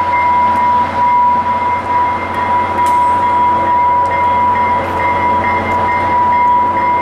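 UTA FrontRunner commuter train at close range: a steady mechanical running noise with a constant high whine throughout.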